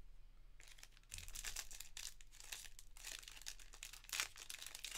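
Foil wrapper of a Panini Prizm soccer trading card pack crinkling as it is handled, starting about half a second in and going on in quick, irregular crackles.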